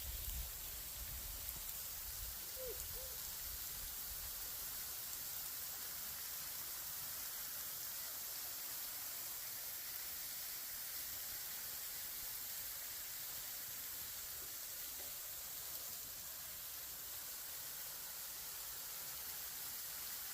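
A steady, faint hiss, with a few low thumps in the first couple of seconds and a short squeak about two and a half seconds in.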